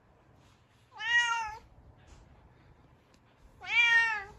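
Bengal cat meowing twice: two drawn-out meows about two and a half seconds apart.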